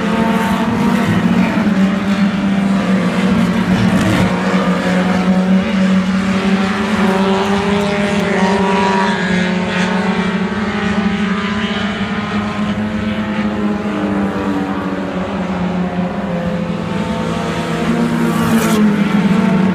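Several dirt-track race cars running hard around the oval together, their engine pitches rising and falling as they go by, swelling louder near the end.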